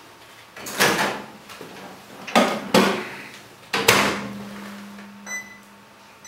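Microwave oven door pulled open with a knock, two knocks as a plastic microwave dish is set down inside, then the door shut with a louder clunk. A low steady hum follows, and near the end the keypad gives short electronic beeps as the cooking time is set.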